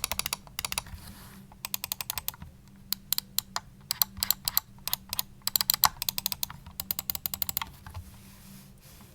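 Roccat Burst Pro gaming mouse clicking in quick runs of many sharp clicks, broken by short pauses.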